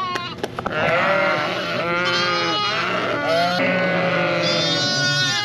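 Lambs bleating, many calls at higher and lower pitches overlapping one another, with a few sharp knocks in the first second.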